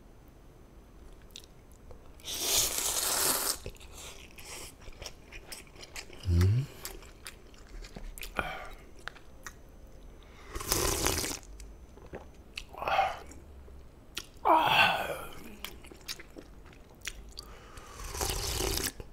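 A person eating jjamppong noodle soup: loud slurps of noodles, and later of broth drunk straight from the bowl, come a few seconds apart with quieter chewing in between.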